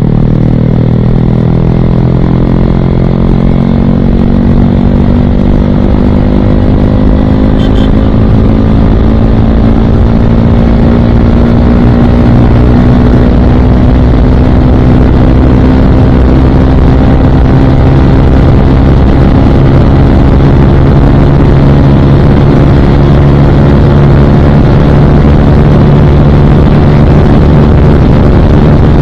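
Motorcycle engine heard from the rider's seat through its Akrapovic aftermarket exhaust, pulling steadily up through the revs over the first ten seconds or so and then cruising at a steady speed. Wind rushes over the microphone throughout.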